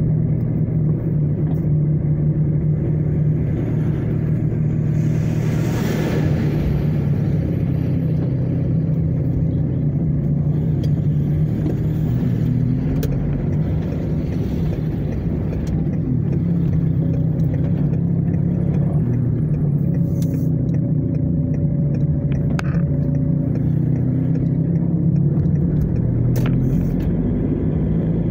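Steady low hum of a car's engine and tyres heard from inside the cabin while driving, with a brief louder rush of noise about six seconds in.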